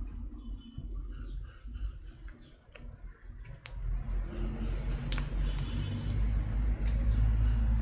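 White slime squeezed and kneaded by hand, with small sticky clicks and squishes. From about four seconds in, a low rumble grows louder underneath.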